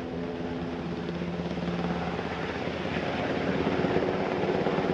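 Navy MH-60S Seahawk helicopter running: a steady engine drone with rotor noise, growing gradually louder as one flies low over the flight line.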